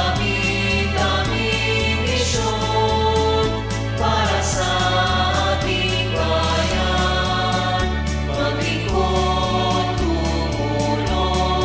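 A choir sings a hymn in Filipino with instrumental accompaniment, over a bass line that alternates steadily between two low notes.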